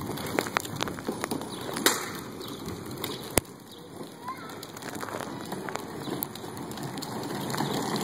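Irregular clicks and knocks of footsteps and phone handling as the phone is carried at a walk along a concrete sidewalk, with one sharp click about three and a half seconds in.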